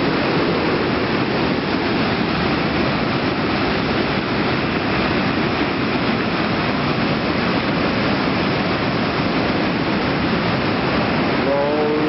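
White-water rapids of the Jinsha River rushing loudly and steadily past the rocks.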